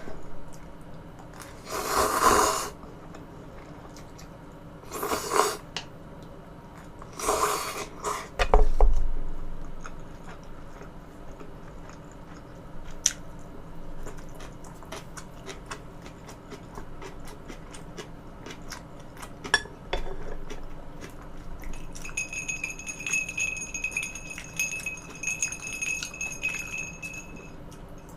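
Eating utensils clinking and scraping against dishes, as many scattered sharp clicks. Three louder noises of about a second each come in the first eight seconds, and a faint steady high tone sits under the clicks for several seconds near the end.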